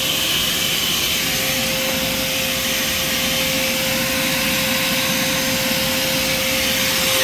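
A high-speed power tool running steadily, giving an even whine at one fixed pitch over a rushing hiss, as it is used to clean cylinder heads.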